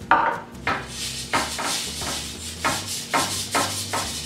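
A hand rubbing oil over a metal baking sheet, greasing it: repeated swishing wiping strokes about twice a second, the first stroke the loudest.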